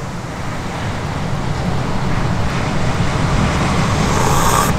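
A slurp of hot pho broth sipped from a ladle near the end, over a steady low rumble of wind and surf.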